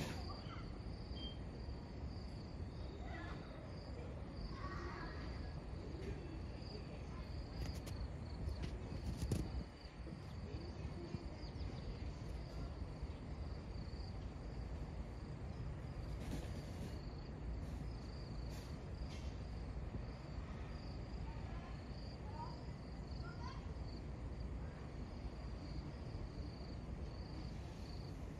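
Insects chirring steadily in a thin, high, slightly pulsing band, over a low outdoor background rumble. The rumble swells briefly and drops off suddenly about ten seconds in.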